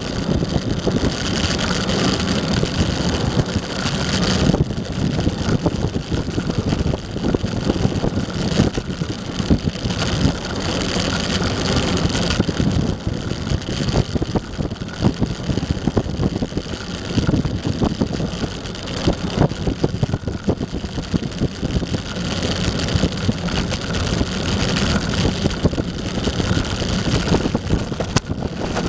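Eglide electric skateboard riding on pavement: a steady rumble and rapid rattle of the wheels over the asphalt, with wind on the microphone.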